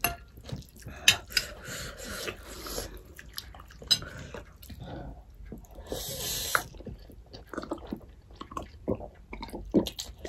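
Close-up wet chewing and slurping of spicy Korean instant ramen noodles, with scattered small mouth smacks and clicks and a longer slurp about six seconds in.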